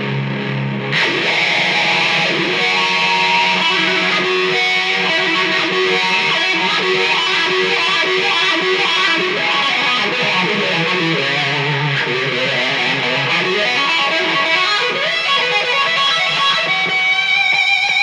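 Heavy Texas stoner-rock with fuzz-distorted electric guitars: a low held note, then the band comes in loud about a second in. Near the end the guitar shifts to a held, higher line.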